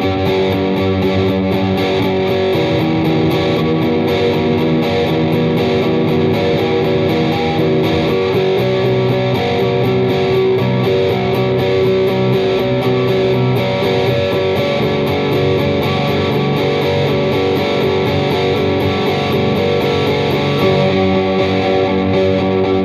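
Distorted electric guitar through Metal Zone and Super OverDrive pedals, playing a steady rhythm with sustained chords layered by a loop pedal.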